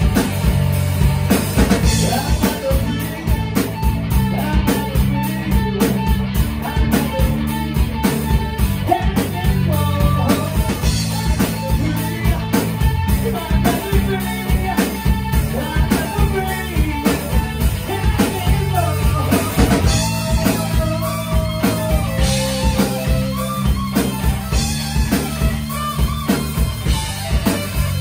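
Live rock band playing: drum kit keeping a steady beat under electric guitar and bass guitar, with a man singing into a microphone.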